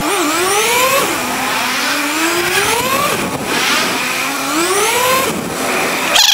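Kawasaki ZX-6R sport bike engine revving up several times while riding, its pitch climbing and then dropping back between each rise.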